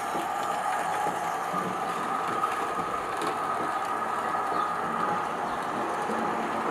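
Model railway train running along the track: a steady whine from the locomotive's small electric motor, with the wheels of the coaches rattling over the rails.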